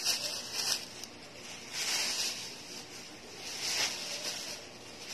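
Thin plastic bag crinkling and rustling in several bursts as plush toys are stuffed into it.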